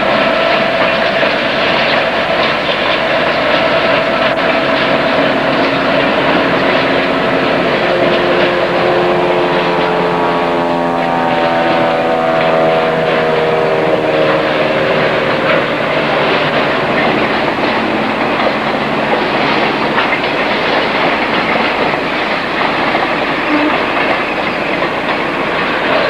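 Train rolling past on dockside track: a loud, steady rumble and rattle of the cars, with a pitched whine that slowly falls for several seconds in the middle.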